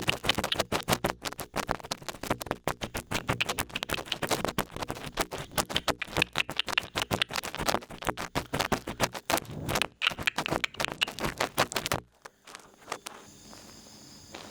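Large ear pick scratching and scraping in an ear in dense, rapid strokes. The scratching stops abruptly about twelve seconds in, leaving a quiet stretch.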